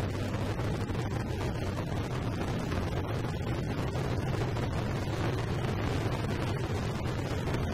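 A pack of motorcycles idling at a standstill, a steady low engine rumble with no revving.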